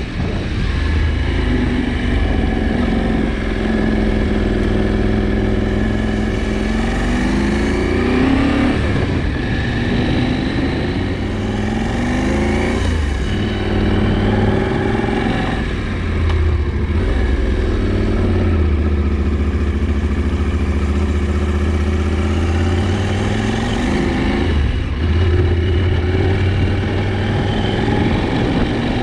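KTM 790 Adventure's parallel-twin engine running on the move, its pitch rising several times as it accelerates and dropping back at each gear change.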